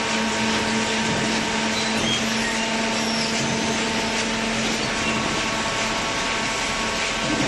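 Hydraulic waste paper baler running: a steady mechanical hum from its motor and hydraulic pump over a constant noisy machine drone.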